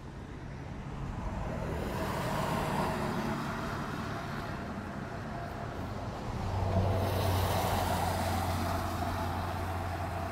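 Road vehicles driving past. One passes about two seconds in, and a louder one about six and a half seconds in carries a steady low engine hum.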